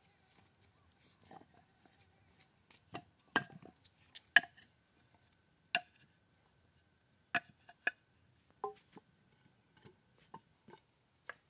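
About a dozen sharp knocks and taps at an irregular pace, the loudest two about three and a half and four and a half seconds in, some with a brief ringing pitch, typical of hand work with hard objects.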